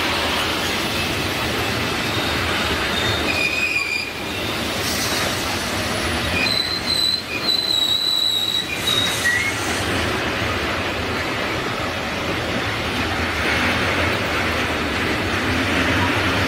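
Loaded container wagons of an intermodal freight train rolling past at speed: a loud, steady rumble of steel wheels on rail, with brief high-pitched wheel squeals between about three and nine seconds in.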